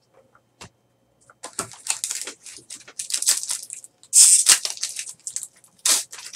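Foil wrapper of a trading card pack crinkling and tearing as it is pulled open by hand, in quick irregular rustles, loudest about four seconds in. A single click comes before the crinkling starts.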